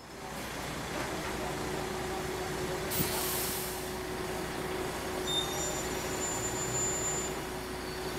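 Street traffic noise: a steady rumble with a low hum from heavy vehicles. A short high hiss, like an air-brake release, comes about three seconds in.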